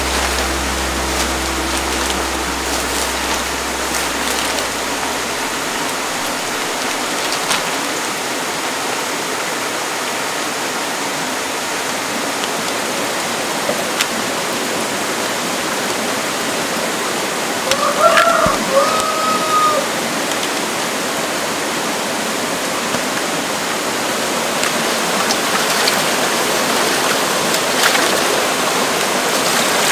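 Steady rush of running water from a small stream cascading over rocks. About eighteen seconds in, a brief pitched call sounds over it.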